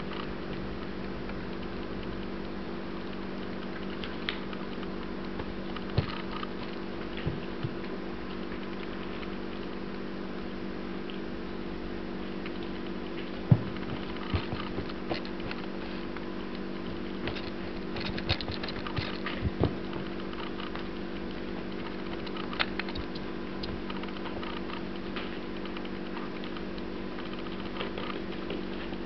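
Scattered light taps and knocks from a Cavalier King Charles spaniel and a kitten scuffling on a tile floor, over a steady low hum. The loudest knock comes about halfway through, followed by a cluster of taps a few seconds later.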